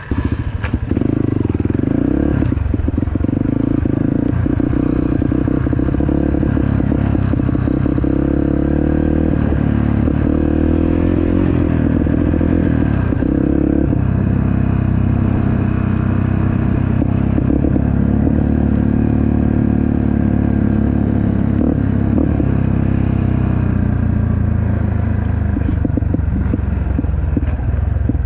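Off-road vehicle engine running continuously as it is ridden, its pitch stepping up and down with the throttle.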